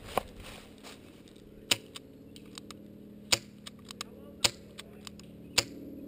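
HFC C96 airsoft gas rifle firing single shots, five sharp cracks spaced a second or so apart, with a few fainter clicks in between.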